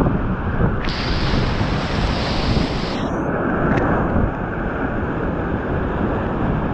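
Big whitewater rapids rushing and churning around a kayak, a loud, steady noise with wind and water buffeting the microphone. The hiss brightens for a couple of seconds starting about a second in.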